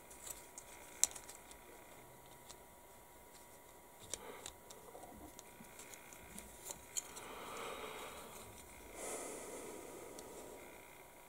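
Small plastic model kit parts being handled and dry-fitted by hand: scattered light clicks and taps of plastic on plastic, with soft rustling and rubbing in the second half.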